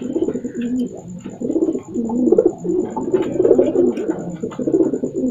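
A male domestic pigeon cooing in courtship, calling for a mate. It gives a run of about five rolling coos, each under a second long.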